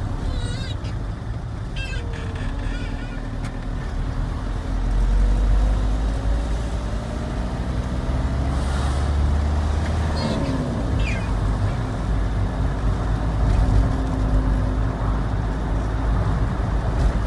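A car driving: steady engine and road rumble, swelling a little about five seconds in.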